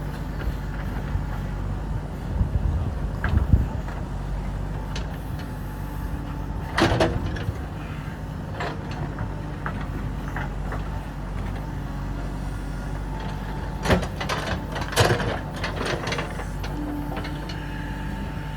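JCB 3DX backhoe loader's diesel engine running steadily under work, with several sharp clanks and knocks of metal on rock and soil, the loudest about seven seconds in and twice near the three-quarter mark.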